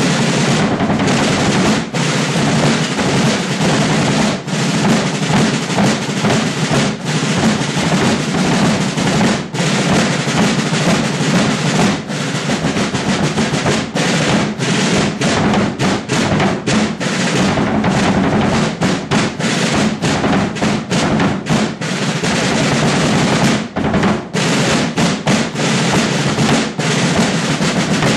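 Rudimental drum line of rope-tension snare drums and a bass drum playing together: fast rolls and dense snare strokes over bass drum beats, without a break.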